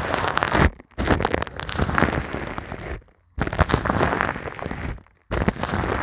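A brush's bristles scratching over a foam microphone windscreen, right on the mic: a loud, dense crackling scratch in long strokes, broken by three short silent pauses, about a second in, at about three seconds, and near five seconds.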